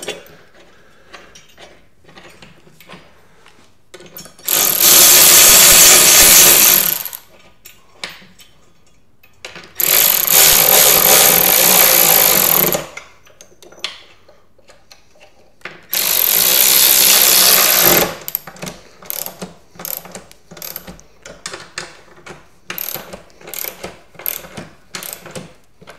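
Power drill run in three bursts of two to three seconds each, driving in the pinball machine's front leg bolts, with small clicks and knocks between the bursts.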